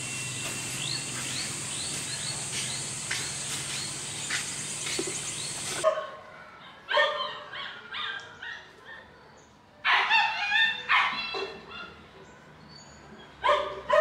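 A dog barking in short bursts, several barks at a time, louder and clearer after about six seconds. For the first six seconds a steady machine hum with a high hiss runs under the barking and then cuts off suddenly.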